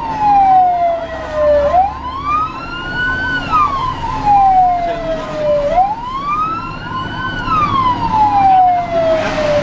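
Fire engine's wail siren going up and down, each cycle a quick rise and a slower fall of about four seconds, heard from inside the cab of a moving fire truck. The truck's engine rumbles underneath.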